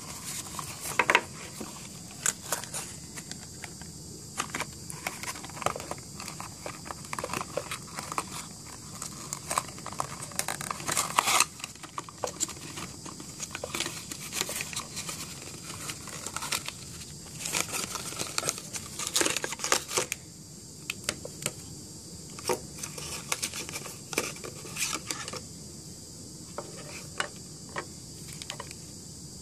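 Cardboard box parts and a clear plastic bag rustling and crinkling as they are handled, with irregular sharp taps and knocks as items are lifted out and set down on a table. A steady high hiss runs underneath.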